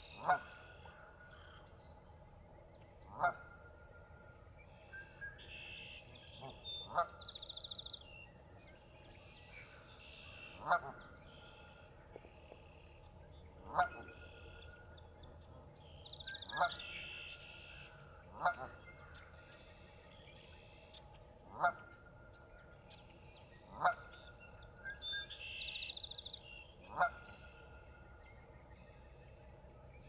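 Canada geese honking: about ten short single honks spaced a few seconds apart.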